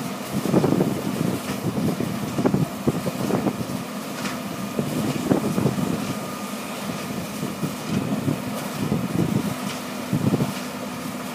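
Heavy diesel machinery running: a trommel screen and excavators working together. It is a steady engine drone with irregular louder surges every second or two, and a few faint clanks.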